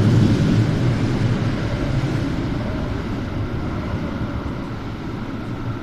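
A light rail train pulling out of the station, its low rumble fading steadily as it moves away.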